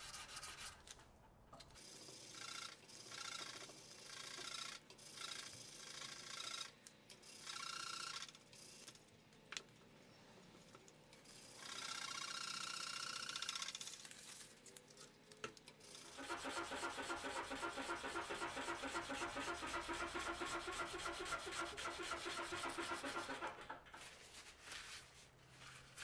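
Hand sanding a 1095 steel knife blade with a sanding block, abrasive rubbing back and forth over the steel. Short runs of strokes in the first half, then a steady run of quick, even strokes lasting about seven seconds.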